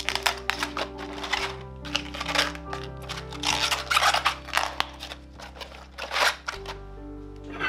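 Savoy cabbage leaves rustling and tearing as they are pulled off the head by hand, in irregular bursts, over background music. The leaf sounds stop about six and a half seconds in, leaving only the music.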